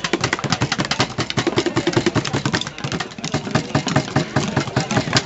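Fast street drumming on upturned buckets: a dense, rapid stream of sharp strikes with a short lull about three seconds in.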